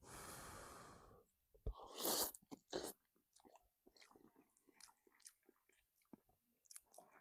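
A person eating freshly cooked ramen noodles: two short noisy sounds in the first two seconds, then quiet chewing with many small wet clicks.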